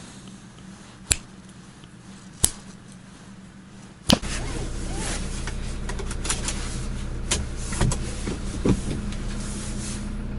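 Two sharp clicks over a faint low hum, then from about four seconds in a car engine running steadily, heard from inside the cabin, with scattered clicks and knocks over it.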